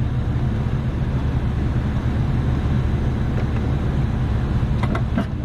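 AAON rooftop HVAC unit running with a steady low mechanical drone, its fan spooled up. A couple of light clicks near the end.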